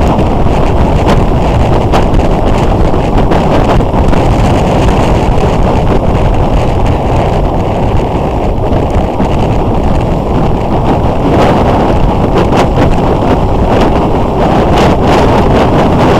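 Wind noise buffeting the microphone of a camera on a moving motorcycle, a steady low rush that covers the motorcycle's running at road speed, with brief crackles of gusting now and then.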